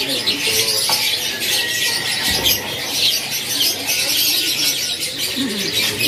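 A cage full of domestic canaries chirping and singing in a dense, continuous chatter, with wings fluttering as birds flap about the cage.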